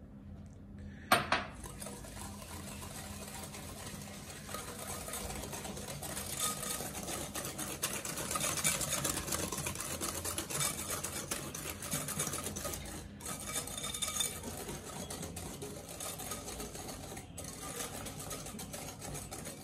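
Wire whisk beating eggs and sugar in a glass mixing bowl: a steady, rapid scraping and clinking of the wires against the glass. A sharp knock about a second in is the loudest sound.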